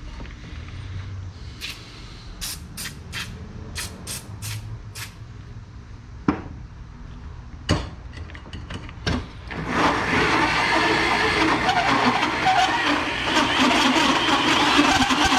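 A corded electric drill with a bimetal hole saw cutting through the aluminum wall of an intake box, starting about ten seconds in and running steadily and loudly to the end. Before it, a run of short sharp clicks and then a few knocks.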